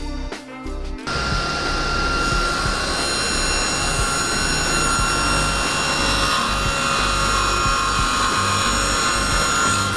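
Power saw cutting wooden strips to size to fill an empty groove in a window frame. It starts about a second in and then runs steadily with a whine.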